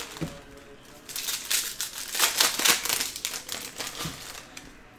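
Foil wrappers of trading-card packs crinkling and crackling as they are handled and opened, a dense run of crackles from about a second in until near the end.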